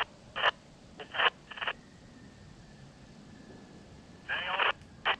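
Handheld two-way radio giving short bursts of thin, garbled transmission: a few quick blips in the first two seconds and a longer burst about four seconds in.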